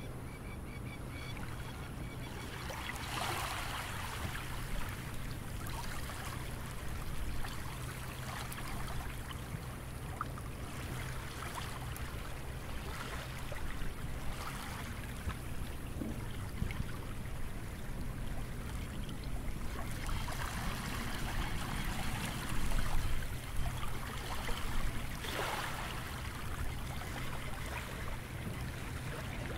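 Small sea waves lapping and washing on a beach. Louder splashes come about three seconds in and again between about twenty and twenty-six seconds, over a steady low hum.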